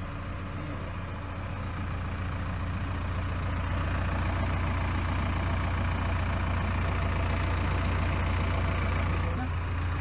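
JCB 448 ecoMAX 4.8-litre naturally aspirated four-cylinder diesel of a JCB 3DX backhoe loader running steadily, heard from the cab while the front loader's hydraulic lever is worked. The engine sound grows a little louder over the first few seconds, then holds steady.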